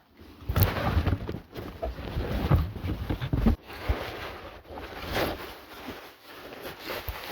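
Packaging being handled and opened: rustling with repeated knocks and bumps, busiest in the first few seconds and then quieter.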